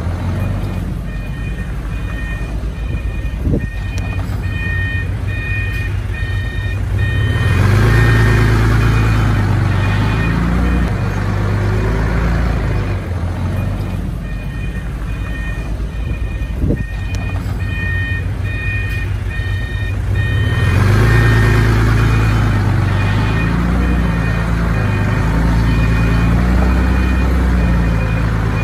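Heavy diesel earth-moving machine running, its reversing alarm beeping about twice a second for several seconds, then the engine revving up under load. The cycle happens twice.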